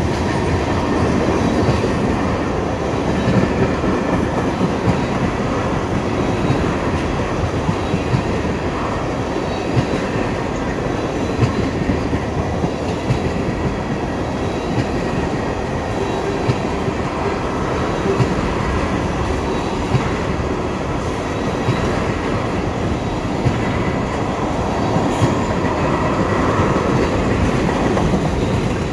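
Tank cars of a freight train rolling past: a steady rumble of steel wheels on rail, with sharp clicks every second or two as the wheel sets cross rail joints.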